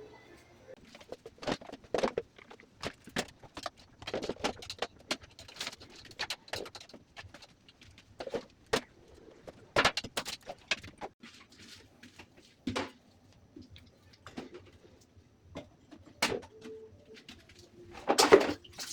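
Irregular light clicks, taps and knocks of household objects being handled and set down, with a short low tone about three-quarters of the way through.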